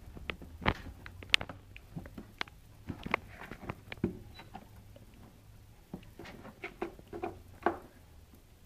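Cat's paws and claws scratching and tapping on a cardboard box as it digs into a hole in the lid: irregular, quick scrapes and taps.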